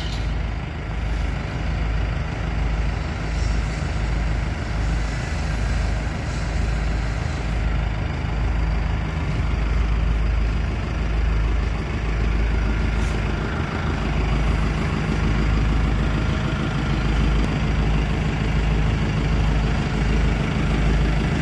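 JCB 3DX backhoe loader's diesel engine idling steadily, with a deep, even low hum.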